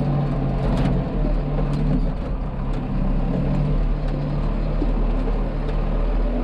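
Tractor engine running steadily under heavy load, heard from inside the cab while it pulls a heavy disc harrow, with a few sharp clicks or knocks over the top.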